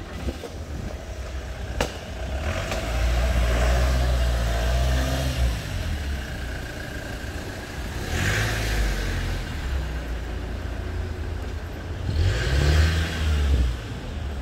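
Motor vehicles passing on a city street: engine rumble and tyre noise swell and fade as they go by, about three in turn, with engine pitch rising and falling. A single sharp knock is heard about two seconds in.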